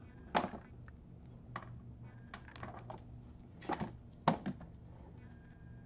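Hands handling automotive wiring and a small heat-shrink butt connector: a scatter of light clicks and taps, the sharpest about four seconds in, over a faint steady low hum.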